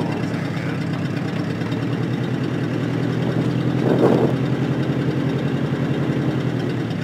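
An engine idling steadily with an even pulse, with one brief louder sound about four seconds in.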